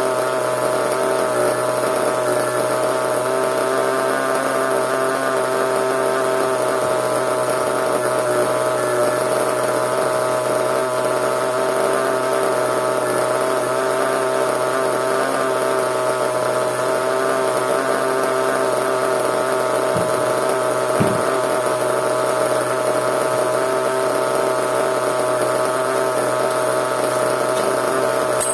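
Small nitro glow engine of an RC monster truck idling, a steady high-pitched buzz that holds one pitch without revving. Two faint knocks come about twenty seconds in.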